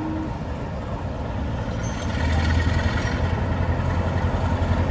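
The last short note of a Class 47 diesel locomotive's horn, then its Sulzer twelve-cylinder diesel engine working hard as it pulls away under power. The engine is a deep, pulsing throb that comes in strongly about two seconds in and keeps getting louder.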